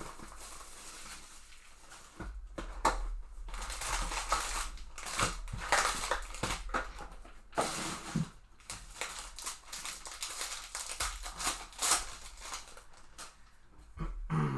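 A sealed trading-card hobby box being opened by hand: plastic wrap and packaging crinkling and tearing in irregular rustles and sharp snaps, with cardboard scraping.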